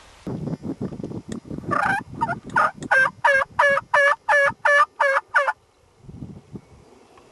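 Wild turkey yelping: a loud series of about a dozen evenly spaced, two-toned notes, roughly three a second. Before it there is about a second of low, irregular knocking and rustle.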